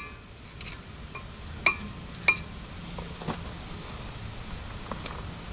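Small metal parts clinking as they are handled: a few light metallic clicks with a brief ring, two sharper ones about two seconds in and fainter taps later.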